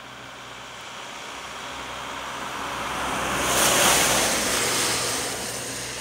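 A gust of wind rushing through the surrounding bushes and trees, a hiss that swells to a peak a little past halfway and then eases off.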